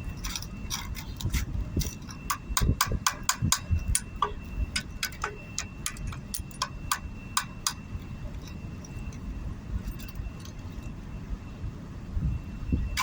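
Irregular sharp clicks and light clinks, bunched together about two to four seconds in, over a steady low rumble, with a faint steady high-pitched tone running underneath.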